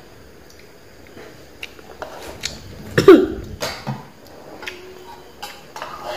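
Spoons clicking against rice bowls, with a short loud vocal sound from a young child about three seconds in that falls sharply in pitch.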